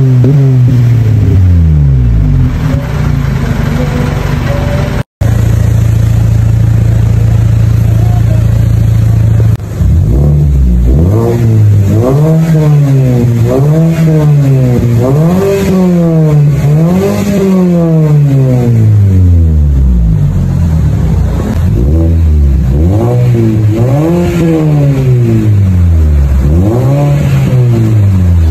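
Mazda CX-5 engine through an aftermarket muffler exhaust, idling steadily, then revved again and again from about a third of the way in, the pitch climbing and falling with each rev, about one every second or two. Before a cut about five seconds in, another car's exhaust is heard with a rev dying away.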